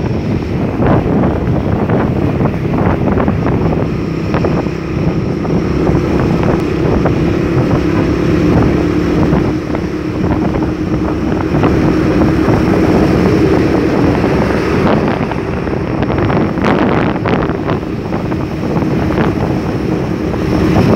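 Wind buffeting the microphone of a moving vehicle, over a steady engine hum and road traffic noise.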